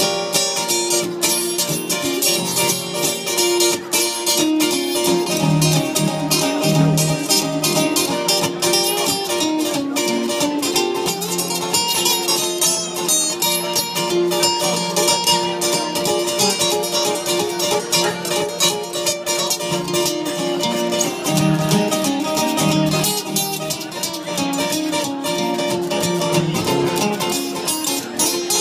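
Live band playing an instrumental break with a guitar lead and no vocals.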